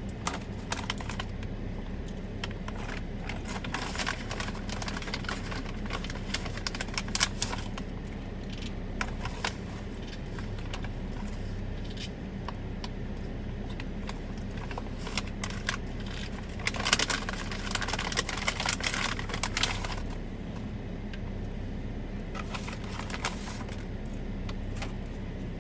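Steady low hum of an idling car heard from inside the cabin, with scattered light taps and clicks on top that come thicker for a few seconds about two-thirds of the way through.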